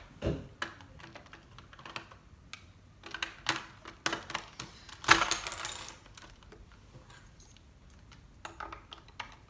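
Plastic LEGO bricks and parts clicking and clattering as a small built model is handled, pulled apart and pressed together on a wooden table, with a longer clatter about five seconds in.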